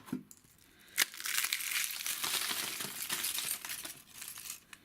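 Wrapper of a chocolate surprise egg crinkling as it is torn open, with a sharp click about a second in, then a dense crackling that dies away near the end.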